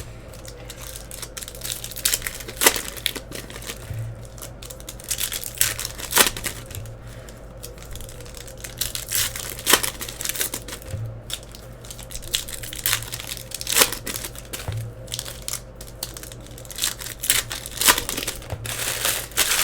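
Trading-card pack wrappers crinkling and tearing as packs are opened, with cards handled, in scattered crackles and rustles over a steady low hum.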